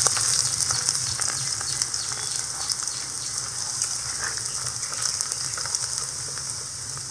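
Finely chopped ginger and garlic sizzling in hot oil in an iron wok, stirred with a metal ladle that clicks and scrapes against the pan. The sizzle slowly grows quieter.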